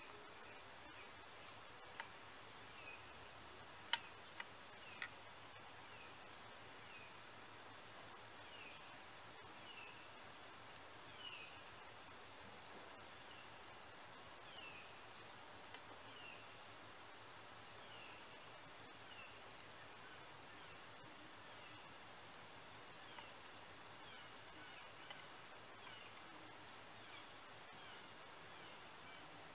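Faint steady insect trill with short falling chirps about once a second. A few sharp metallic clicks, the loudest about four seconds in, come from a screwdriver working at the chainsaw's flywheel hub.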